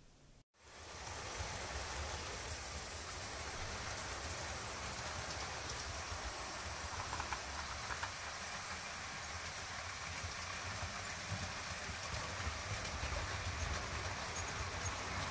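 Model train running on the layout: a steady rolling rumble of wheels on track and motor hum, with a constant hiss on top, starting about half a second in.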